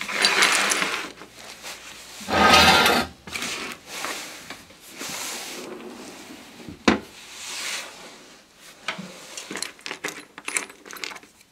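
Lumberjack BS228 bench-top band saw being tipped over onto its back on a workbench. Its metal body scrapes and rubs against the bench, loudest about two to three seconds in, with a sharp knock near seven seconds and smaller clicks and rattles after.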